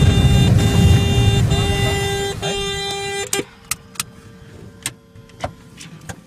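Light aircraft slides to a halt on its belly on grass after a gear-up landing: a loud low rumble fades out over about two and a half seconds while a steady cockpit warning horn sounds. After about three seconds it goes much quieter, with a few sharp clicks.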